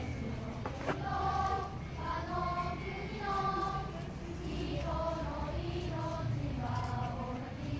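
A school group singing together as a choir, in phrases of held notes with a short pause midway.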